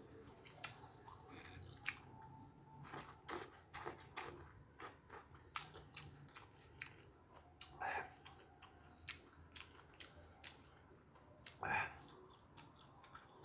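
Close-up chewing of a mouthful of tahu bakso (fried tofu stuffed with meatball) and noodles: a steady run of small wet clicks and lip smacks, with two louder smacks about eight and twelve seconds in.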